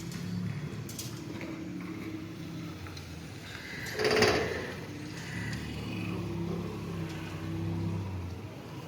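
A motor engine running steadily with a low hum, with a brief loud rushing burst about four seconds in.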